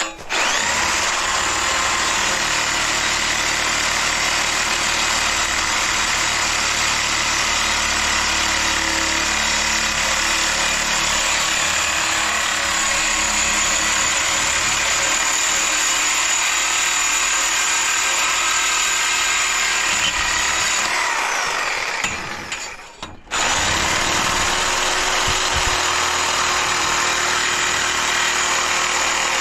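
A handheld power tool running steadily under load. Its motor winds down about 21 seconds in and starts again a second or two later.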